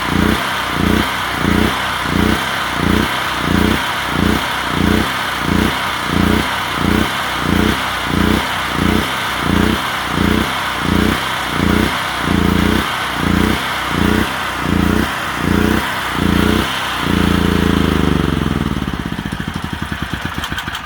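Generac 6500-watt portable generator's engine surging and sagging about twice a second as it runs out of fuel with the gas valve shut. About three-quarters of the way through it steadies briefly, then winds down and stops near the end.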